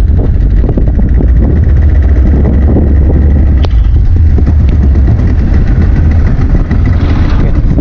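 Boat engine running steadily with a deep, loud rumble.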